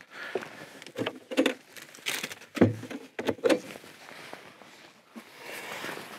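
Scattered knocks, clunks and rustles of gear being handled in a boat, followed near the end by the fabric rustle of a life jacket being pulled on.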